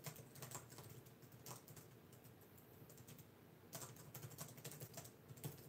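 Faint typing on a laptop keyboard: scattered key taps, then a quicker run of taps a little past halfway.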